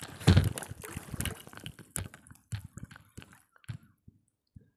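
Lake water splashing and sloshing around a foam board as a swimmer lying on it kicks and paddles, with a heavy splash just after the start, then smaller splashes and drips thinning out.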